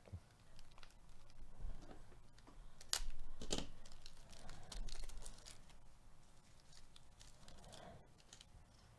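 Plastic wrapper of a baseball card pack being torn open and crinkled, with sharp crackles about three seconds in, then faint handling of the cards.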